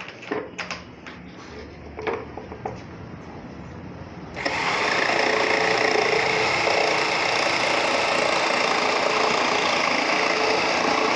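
A few knocks and clicks, then about four seconds in a handheld electric jigsaw starts and runs steadily, its reciprocating blade cutting through plywood.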